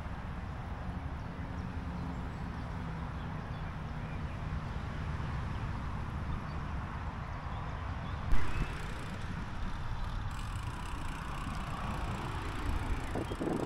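Bicycle rolling along a path: a steady low rumble from the ride, with wind on the microphone. A single sharp knock comes about eight seconds in.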